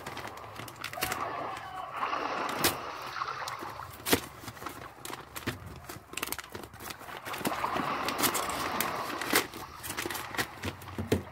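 Clear plastic toy bag crinkling while its cardboard header card is pulled and torn away by hand, with irregular sharp crackles and snaps.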